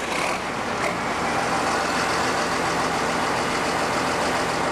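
Tractor engine running steadily, its noise building over the first second as it is brought up to run the boom mower's hydraulics.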